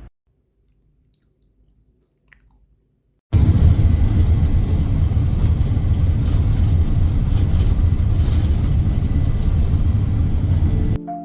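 About three seconds of near silence, then a sudden loud, steady low rumble with a rough, rustling edge that runs until it cuts off near the end.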